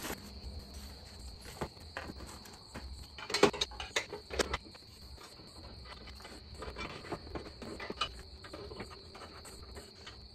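Short metallic clinks and knocks as parts are handled on a chrome truck bumper, bunched about three and a half to four and a half seconds in, with another near eight seconds. A steady high-pitched trill sits underneath throughout.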